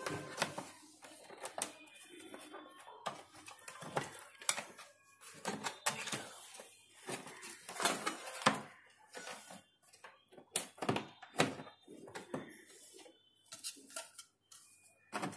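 Irregular clicks, taps and knocks from hands handling a Ventair electric water heater's body and its internal wiring, with a few louder knocks scattered among softer rustling.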